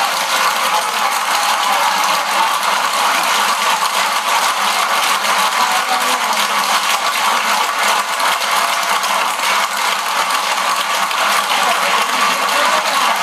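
Concert audience clapping: a dense, steady crackle of many hands.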